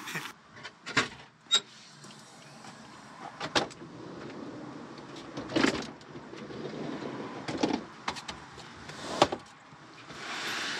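Items being handled in and around a kei van's cabin as it is emptied: a handful of separate knocks and bumps, the loudest about nine seconds in, over a steady low hiss.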